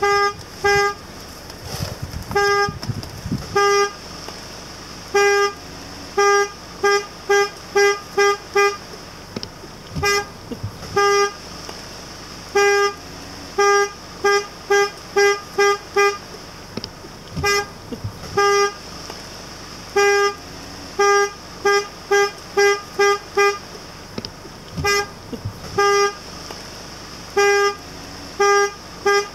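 Jeep's horn tooted in many short beeps, some single and some in quick runs of several, with pauses between: a driver honking to move cattle blocking the road.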